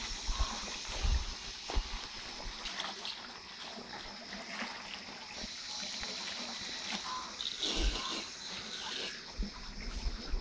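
Water trickling and splashing in an outdoor jacuzzi pool with bubbling jets, heard as a steady hiss, with a few low thumps.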